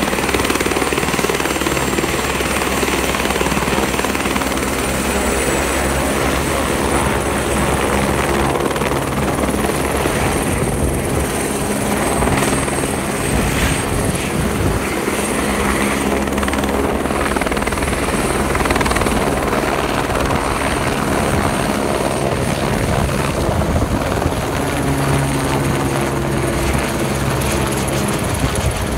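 Airbus AS350 Écureuil helicopter at full rotor speed lifting off and climbing away overhead: steady rotor noise with a high turbine whine running through it.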